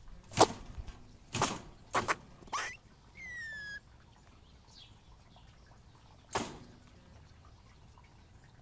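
A gray squirrel in a live trap gives one clear whistle about three seconds in, a little over half a second long and falling slightly in pitch. Around it come five short, sharp sounds, four in the first three seconds and one a few seconds later; the first is the loudest.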